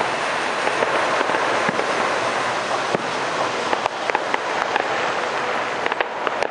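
Fireworks going off in a continuous barrage: a dense, steady rush of bursting shells, with sharp crackling pops growing thicker in the second half.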